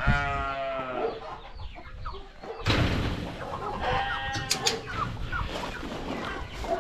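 Young chickens clucking and calling as they eat freshly put-down feed, with a long call in the first second. A noisy hiss comes in suddenly about two and a half seconds in.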